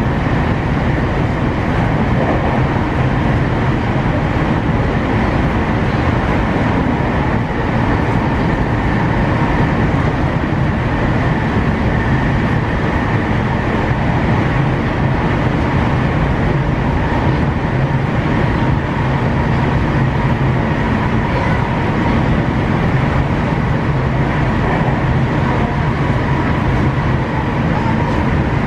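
Steady running noise inside a JR West 225 series electric multiple unit travelling at speed: a constant rumble of wheels on rail with faint steady whining tones, unchanging throughout.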